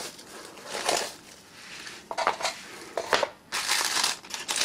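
Clear plastic bags around packaged antennas crinkling and rustling as they are handled and lifted out of a box, in several short, irregular bursts.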